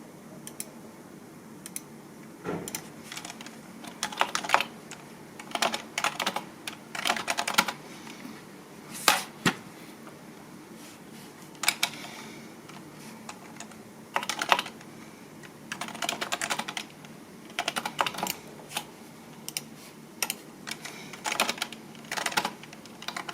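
Typing on a computer keyboard: quick runs of key clicks in short bursts with brief pauses between them.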